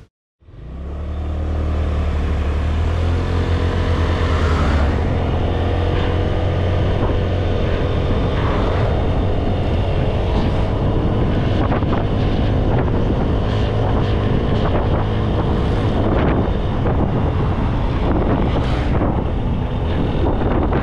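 Motorbike engine running steadily on the move, with wind buffeting the camera microphone. It fades in about half a second in, with a heavy low hum that eases after about five seconds.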